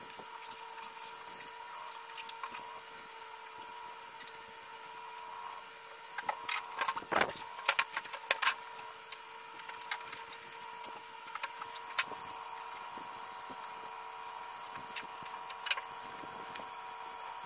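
Hard plastic toy parts being handled and fitted together: scattered clicks and knocks, with a denser run of louder clicks and a brief scrape about seven seconds in. A steady hum runs underneath.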